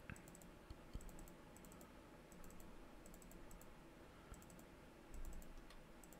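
A few faint computer mouse clicks and key presses, spaced irregularly over low room hum.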